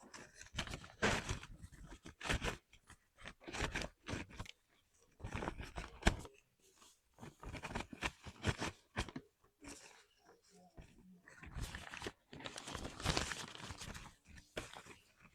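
Mechanical keyboard switches being handled and lubricated: irregular crunchy scraping and plastic clicks, with a sharp click about six seconds in.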